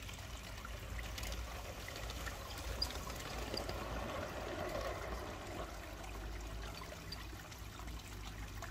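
Outdoor ambience: a steady rushing, trickling noise with a low rumble beneath it and a few faint high ticks.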